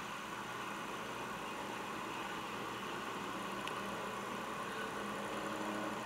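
Small electric motor of a homemade model boat running with a steady hum, heard as playback through a screen's speaker.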